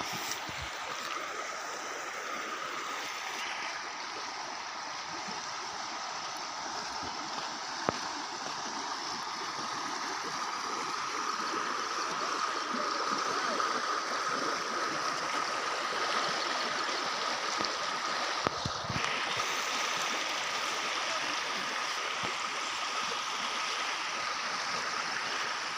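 Muddy floodwater rushing and gurgling across a flooded field, a steady rushing noise.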